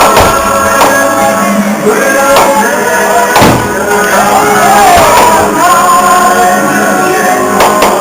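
Loud rock music with singing, people shouting over it, and a few sharp bangs cutting through, the loudest about three and a half seconds in.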